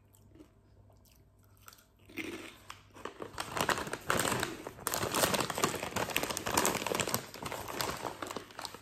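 Faint chewing of a crunchy baked carrot-and-lentil crisp, then from about two seconds in a San Carlo Veggy Good crisp packet crinkling loudly as it is handled and turned over.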